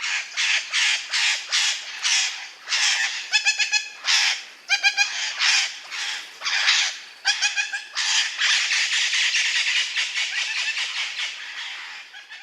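Parrot squawking: a run of harsh screeches, two or three a second, broken by a few short pitched, rattling calls, then one long continuous screech over the last four seconds or so.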